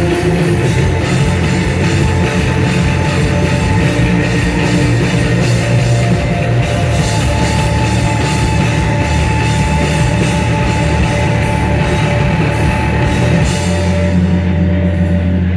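Live rock band playing loud, with distorted guitars and a drum kit. Near the end the cymbals and drums drop out, leaving a low sustained drone.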